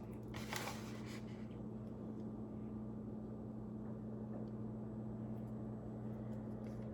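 Steady low machine hum, like a fan or appliance, with a brief rustle of handling about half a second in and a few faint clicks.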